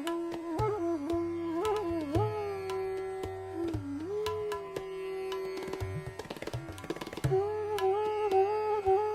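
Bansuri flute playing a slow, ornamented melody in raga Bhopali, with held notes and gliding turns, over tabla accompaniment. A little past the middle the flute breaks off for about a second under a quick run of tabla strokes, then comes back in.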